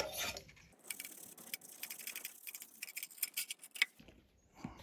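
Rapid, irregular light clicking and ticking from small tools and parts being handled during the amplifier repair, thickest from about a second in until near the end.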